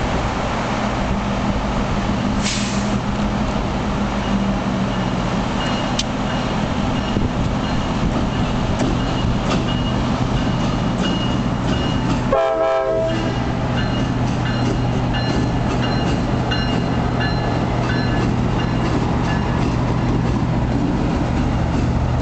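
EMD F-unit diesel locomotives rolling slowly past, their engines making a steady low drone over wheel and rail noise. About halfway through, as the lead unit passes, a short horn blast sounds.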